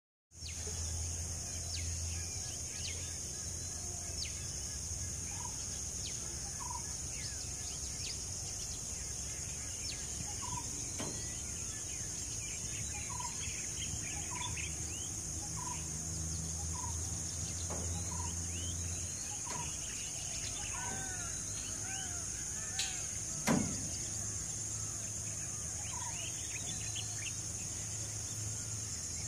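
Open-country birds calling over a steady high-pitched insect drone. One bird repeats a short note about once a second, others chirp, and there are a few arching calls about two-thirds of the way through. A low hum runs underneath, and a single sharp click sounds near the end.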